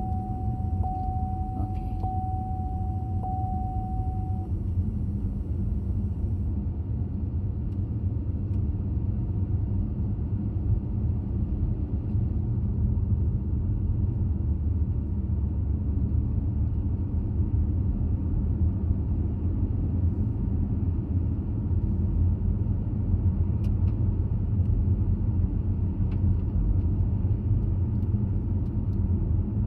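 Steady road and engine rumble of a moving car, heard from inside the cabin. A single steady high tone sounds for the first four seconds or so.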